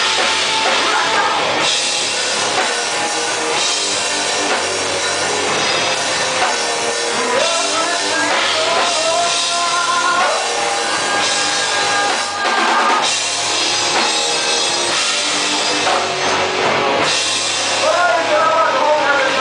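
Live rock band playing loud, with drum kit and electric guitars; pitched guitar lines slide and bend about halfway through and again near the end.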